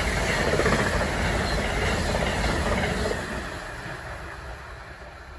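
Amtrak passenger train's stainless-steel cars rushing past at speed, wheels rumbling and clattering on the rails. The noise drops sharply about three seconds in as the last car goes by, then fades as the train recedes.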